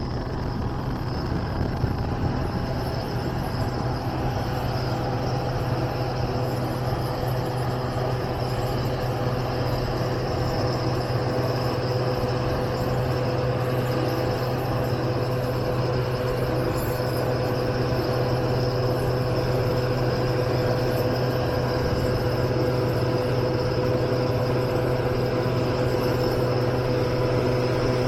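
A car driving steadily along a road: continuous engine and tyre noise with a low hum and a faint steady whine, growing slightly louder over the stretch.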